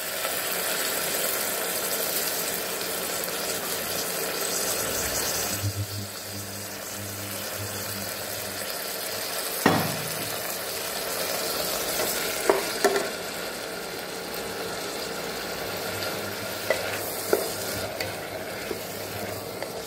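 Soaked basmati rice, green peas and cashews sizzling as they fry in hot ghee in an aluminium pressure cooker. A wooden spatula stirs them, knocking sharply against the pot several times from about halfway through.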